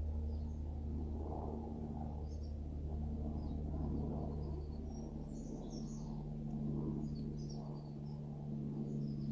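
Airbus AS350 Écureuil helicopter flying overhead, a steady low drone with a rumbling rotor hum. Small birds chirp briefly over it, mostly in the second half.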